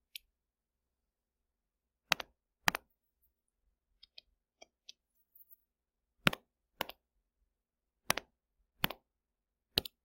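Sharp clicks of a pointing device picking drawing tools on a computer: about eight clicks, several in pairs about half a second apart, with a few fainter ticks in the middle.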